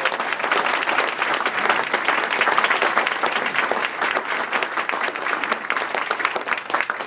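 A roomful of people applauding: dense, steady clapping that dies away right at the end.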